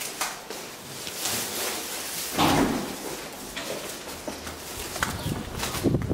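Doors being worked: a metal lift door pushed open, then a heavier door thud about two and a half seconds in and a few sharp latch-like clicks near the end, with footsteps.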